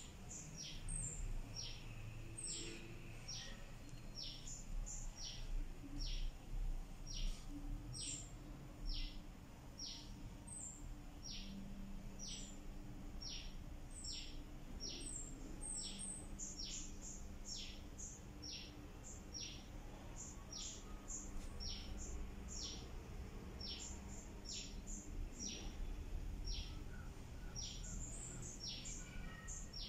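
A bird chirping over and over, short high chirps that fall in pitch, about one or two a second, over a low steady hum.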